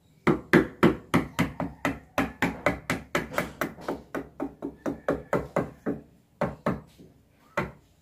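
Wood chisel being hammered into the edge of a wooden door, cutting a shallow recess for the doorknob latch plate. A fast run of sharp strikes, about four a second, lasts some six seconds, then comes a pause and three more strikes near the end.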